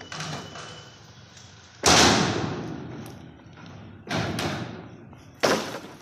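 Bamboo poles being dropped onto a pile: three loud clattering impacts, about two seconds in, four seconds in and near the end, each dying away over most of a second.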